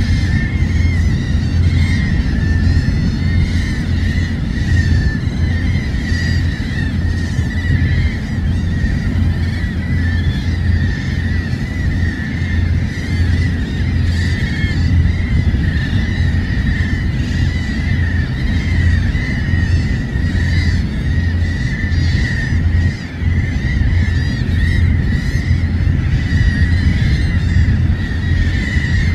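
A flock of seabirds calls constantly, many overlapping cries. Surf rumbles underneath, and wind buffets the microphone.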